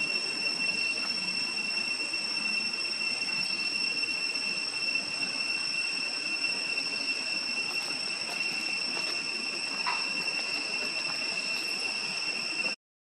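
Steady, unbroken high-pitched drone of insects over an even hiss, holding one pitch throughout; it cuts off suddenly near the end.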